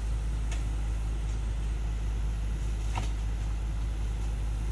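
Komatsu hydraulic excavator's diesel engine idling with a steady low drone, with two faint knocks, one about half a second in and one about three seconds in.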